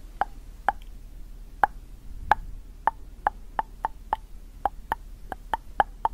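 Sharp tongue clicks made close to the microphone, about fifteen at an uneven pace of two or three a second.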